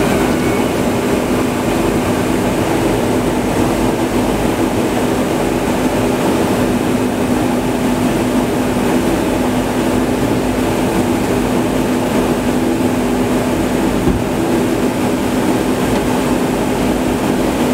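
Steady in-flight drone inside a Boeing KC-135 Stratotanker's boom operator station: engine and rushing-air noise with a steady low hum running under it.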